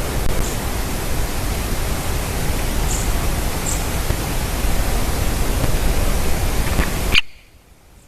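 Steady, loud rushing noise with no pitch to it, with a few faint, very short high chirps over it. It cuts off abruptly about seven seconds in.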